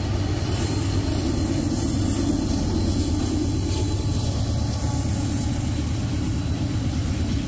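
Freight train passing close by: the steady low rumble of a distributed-power (DPU) diesel locomotive running in the consist, together with the rolling freight cars.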